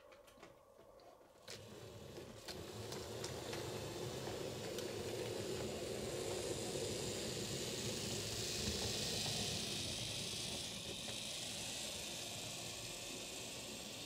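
Model train running on the layout: the locomotive's small electric motor and wheels on the rails make a steady whirring hiss. It builds up over the first few seconds, after a few light clicks, and is loudest around the middle before easing slightly.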